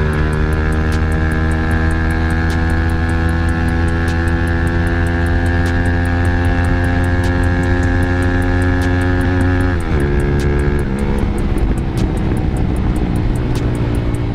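Motorstar Z200S sportbike engine pulling hard under full acceleration, its note climbing steadily through the revs for about ten seconds. Then the revs drop suddenly and the engine runs on at a lower pitch, with wind rushing over the onboard microphone.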